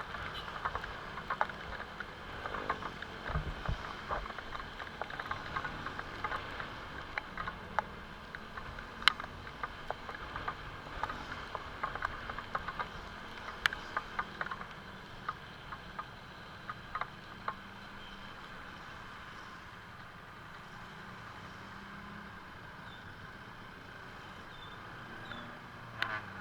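Steady rain with scattered drips and taps, the taps thinning out after about fifteen seconds.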